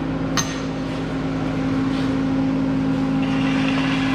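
Steady mechanical hum with two held tones, with one sharp click about half a second in and a faint hiss joining near the end.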